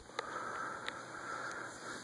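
A sharp click as a ceiling fan is switched off, then a couple of lighter clicks over a faint steady hiss that fades near the end.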